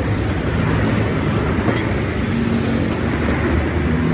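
A motor vehicle engine running steadily with a low, even rumble.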